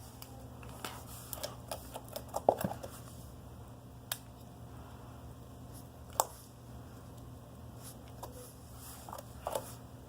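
Slime being kneaded and mixed by hand: scattered sticky clicks and small pops, the loudest about two and a half seconds in and again about six seconds in, over a steady low hum.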